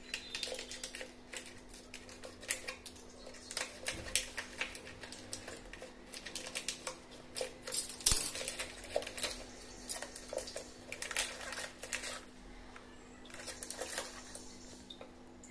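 Aluminium foil pouch crinkling and crackling as it is snipped with scissors and pulled open by hand, in quick irregular crackles with a sharp click about eight seconds in.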